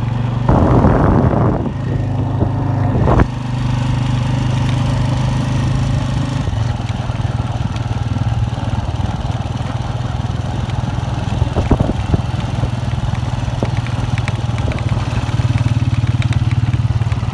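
Honda 125 motorcycle's single-cylinder four-stroke engine running steadily while being ridden. A loud burst of noise comes about half a second in, a sharp knock just after three seconds, and a few light clicks later on.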